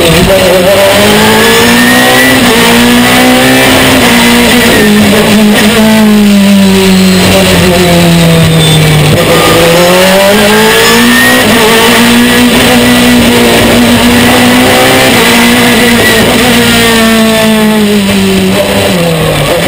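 Ferrari F430 GT2 V8 racing engine at full race pace, heard from inside the cockpit, its pitch climbing and dropping with throttle and gear changes. There is a long drop in pitch about six to nine seconds in, then it climbs again.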